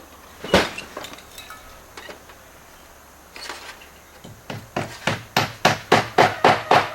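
Copper apron flashing being struck: one sharp knock about half a second in, then near the end a quick regular run of about a dozen metallic hammer taps, roughly four a second, bending the copper down tight.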